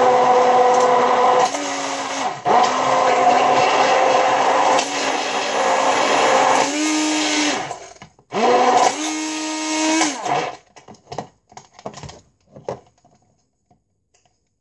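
Electric hand blender whirring as it purées a thick avocado-and-conditioner mix in a plastic jug, its pitch shifting and dipping several times as it works. It cuts out about eight seconds in, runs again for about two seconds, then stops, followed by a few light knocks.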